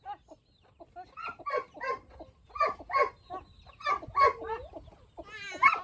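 Farmyard poultry calling: short, repeated calls, two or three at a time in quick clusters, with a longer wavering call near the end.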